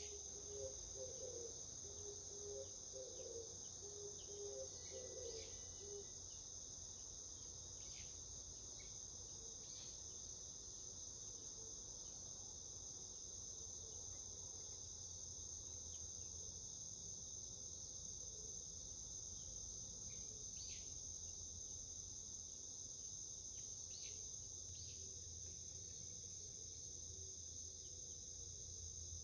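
A steady, faint night-insect chorus of crickets, a continuous high shrill trill. It is joined by a few low calls in the first six seconds and scattered faint chirps.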